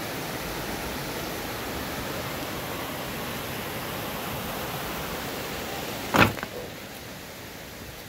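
Shallow stream rushing over rocks and small cascades, a steady even rush of water. A brief loud thump about six seconds in, after which the water is a little quieter.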